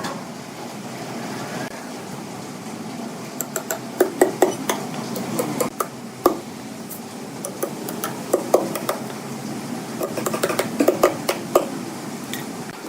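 Irregular sharp clinks and knocks of hard objects striking, coming in clusters, over a steady low background noise.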